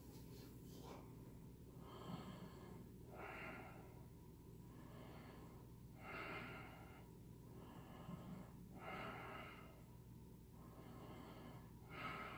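Slow, faint breathing through the nose during a held yoga pose, breaths coming in and out about every second and a half, over a low steady hum.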